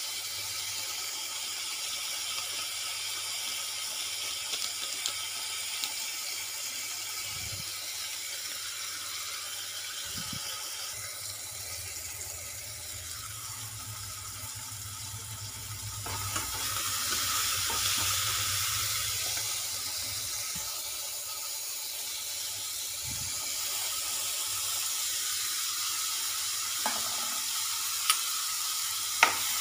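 Vegetable masala sizzling in oil in a non-stick kadhai, a steady hiss that grows louder a little past halfway. A few sharp clicks come near the end.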